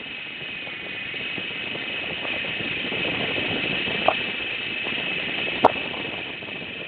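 Small electric motor and gearing of a radio-controlled model running with a steady high whine, with a sharp click about four seconds in and another near five and a half seconds.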